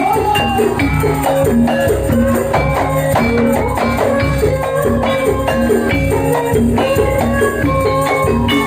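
Loud gajah-gajahan folk band music: a steady drum beat of about two strokes a second, tambourine jingles and a pitched melody line.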